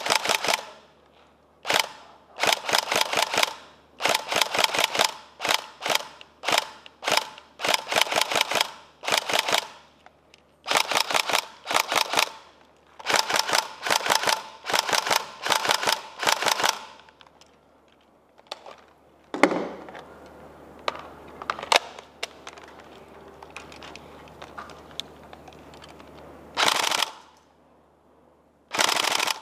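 Tokyo Marui Next Generation SCAR-L airsoft electric gun firing short full-auto bursts, one after another, for about the first seventeen seconds. After a pause with a few single knocks, two more bursts come near the end.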